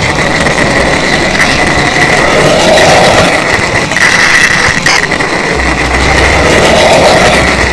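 N gauge model train running close by on its track: a steady whirring rumble of the small motor and wheels on rail, with a constant high whine and a few short clicks.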